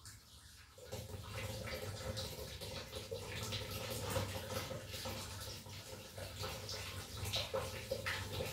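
Water running and splashing, over a steady low hum.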